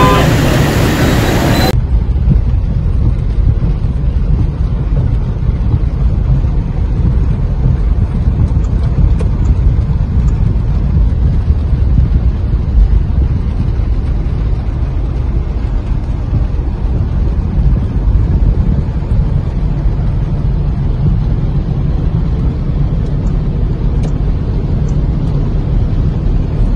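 A vehicle horn sounds for the first two seconds, then cuts off. After that there is a steady, loud low rumble with nothing distinct above it.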